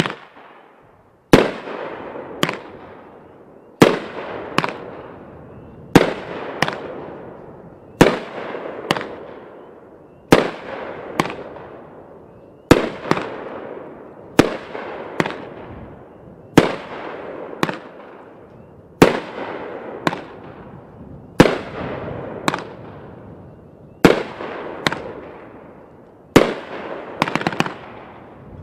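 A 16-shot Blue Thriller multi-shot fireworks cake firing shot after shot. Each shot is a sharp bang with a second, quieter bang under a second later: the launch, then the shell bursting. A fading hiss of the burst follows each pair. Near the end the shots come closer together as the finale of four fires.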